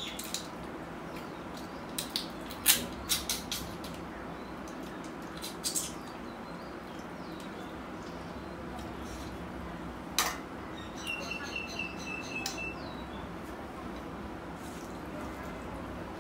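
Eating by hand: scattered short, sharp smacks and clicks of chewing. A bird chirps rapidly in a short run about two-thirds of the way through.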